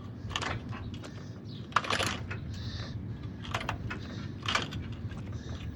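A few irregular sharp metallic clicks and clanks from a hydraulic jack being worked to raise a riding mower, the loudest about two seconds in.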